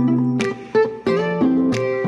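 Background instrumental music, plucked-string notes and chords struck in a steady rhythm.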